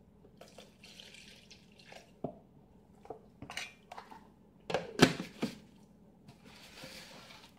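Milk poured from a carton into a plastic blender jar, splashing softly. This is followed by several plastic knocks and clicks as the lid is fitted onto the jar, the loudest about five seconds in.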